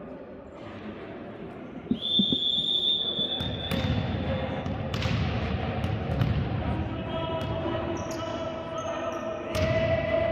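Indoor volleyball match: a steady high whistle blows about two seconds in, then the ball is struck several times amid crowd voices echoing in a sports hall.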